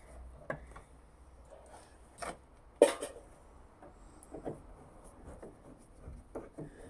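Screwdriver working at a screw in an MG Midget's door: faint scraping and small clicks of metal on metal, with one sharp knock about three seconds in.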